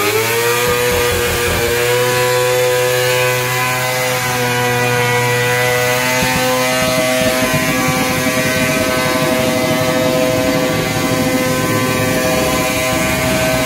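Sportbike engine held at high revs in a stationary burnout, the rear tyre spinning on concrete. The engine note stays steady, with a small step up in pitch about halfway through.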